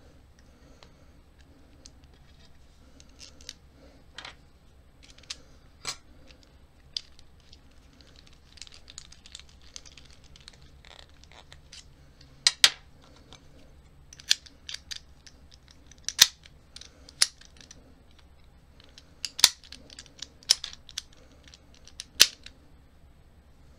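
American Lock 1100 series padlock being reassembled by hand: small metallic clicks and clinks of its parts and shackle being fitted into the lock body. The clicks are scattered and sparse at first, growing sharper later, with a few loud snaps several seconds apart.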